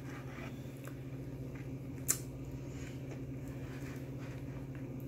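A steady low electrical hum fills the room, with faint handling noises as chicken is picked out of a foam takeout container and one sharp click about two seconds in.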